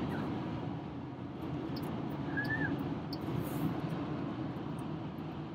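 Steady road and engine noise inside a car cruising at highway speed, with a short faint high tone about two and a half seconds in.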